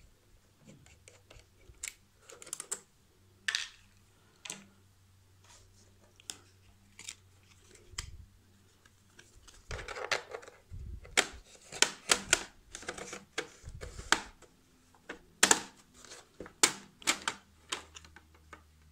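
Irregular small clicks, taps and short scrapes of hand work on a laptop's plastic back cover as it is being opened. The clicks come thickest in the second half.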